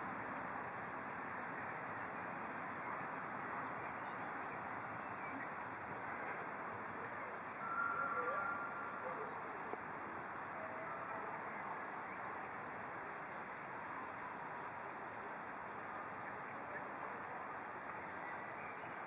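Faint, steady outdoor hiss. About eight seconds in, a distant miniature steam locomotive gives one short two-tone whistle.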